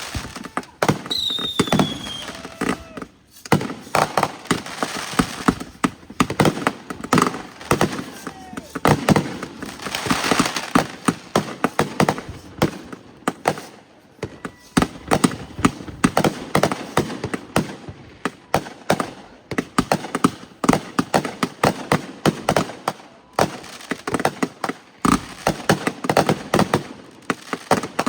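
Fireworks going off in a continuous barrage of rapid bangs and crackles, with a brief high falling whistle about a second in.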